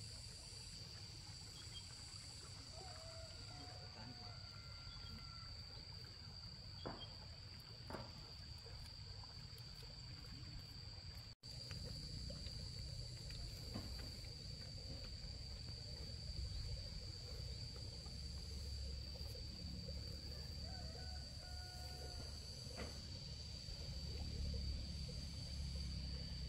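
Insects shrilling in one steady high drone over a low rumble of outdoor background noise, with a couple of faint clicks.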